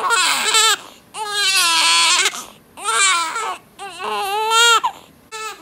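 Newborn baby crying: loud, pitched wails, four long cries of about a second each with short pauses between, then a brief one near the end.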